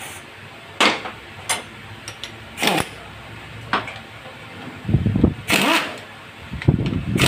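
Pneumatic impact wrench hammering at a bolt on a motorcycle engine in two short rattling bursts, about five and seven seconds in, after a few sharp metal clicks.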